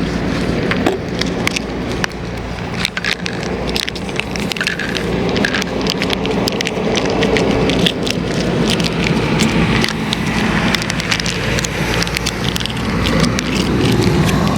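Strong wind buffeting the microphone: a heavy, steady low rumble, with many short crackling clicks scattered through it.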